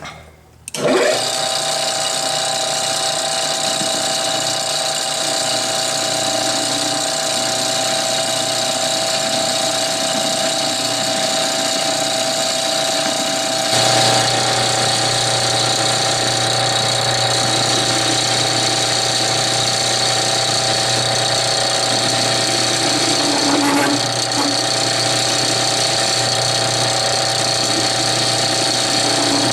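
Metal lathe starting up and running steadily while machining a steel tube sleeve to length, with a steady whine. About halfway through, a lower hum joins and it gets slightly louder.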